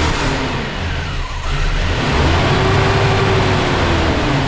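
Ford Ranger engine running rough right after being restarted, its low rumble pulsing unevenly. The roughness comes from a wide hose left off the intake, which acts as a massive vacuum leak.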